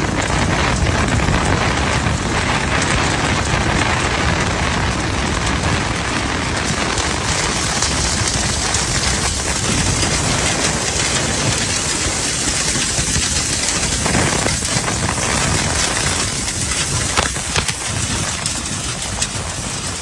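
Negative-air duct-cleaning vacuum running steadily with a loud rush of air, and a dense crackling patter of lint and debris being pulled through the dryer vent duct, with a few sharper knocks near the end.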